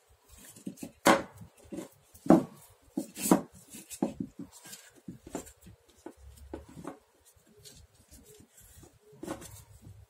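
Plastic spotlight lamp holders and a switch being handled and set down on a wooden board: a series of irregular knocks and clicks, the loudest about one, two and three seconds in, growing sparser after about five seconds.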